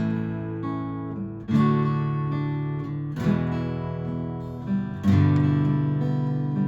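Yamaha acoustic guitar played solo: a chord struck four times, roughly every one and a half to two seconds, each left ringing and fading before the next.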